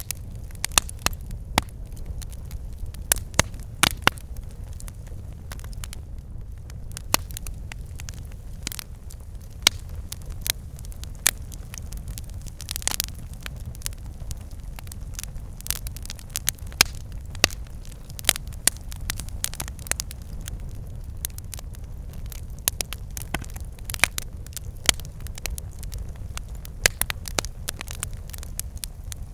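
Campfire burning: irregular sharp crackles and pops from the burning wood over a steady low rumble of the flames.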